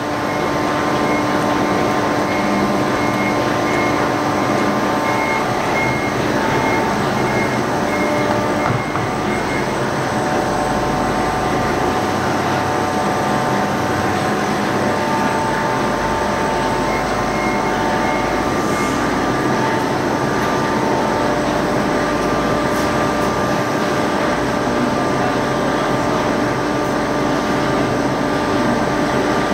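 Toyota forklift running as it drives with a bin of grapes, over a steady mechanical hum. A high beep repeats about twice a second, on and off.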